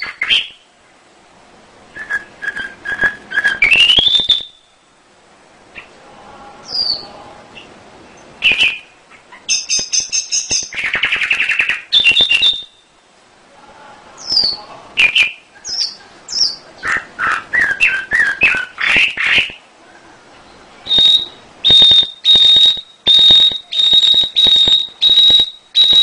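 Domestic canary singing: varied phrases of fast trills, rolls and whistled glides with short pauses between them. In the last few seconds it repeats one high note about twice a second.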